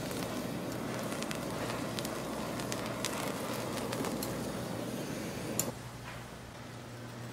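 Pork belly strips sizzling and crackling in oil on a hot flat-top griddle, with scattered metal clicks of tongs and spatula. A sharp click comes about five and a half seconds in, and the sizzle cuts off suddenly, leaving a quieter steady hum.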